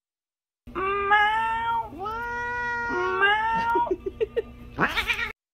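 Black-and-white domestic cat yowling: three long, drawn-out meows of about a second each, followed by a few short chirps and a brief rising call near the end.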